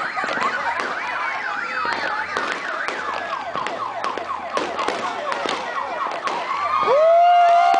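New Year's fireworks going off: scattered sharp pops and crackles under a dense tangle of warbling whistles that rise and fall several times a second. Near the end a louder whistle sweeps up and holds steady.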